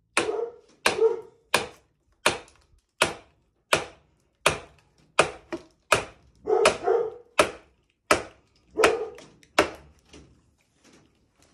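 Sledgehammer striking the back of an axe head driven into an English willow round: about fourteen sharp metal-on-metal blows at a steady pace of a little under one and a half a second, some followed by a brief ringing tail. The blows stop near the end. The round is being split along its natural grain lines into billets.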